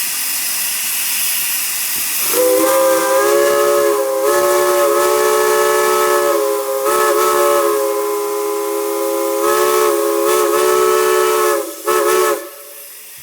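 Steam hissing, then about two seconds in a chime steam whistle sounds, a steady chord of several notes held for about ten seconds with a few brief dips. It cuts off near the end, leaving a quieter hiss of steam.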